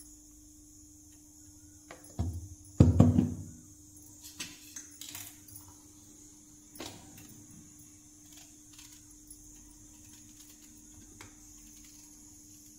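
Kitchen things being set down on a stone counter: two heavy knocks about two and three seconds in, the second the loudest with a short ringing tail. Then a few faint clicks as spiny gourds are sliced with a knife onto a steel plate, over a faint steady hum.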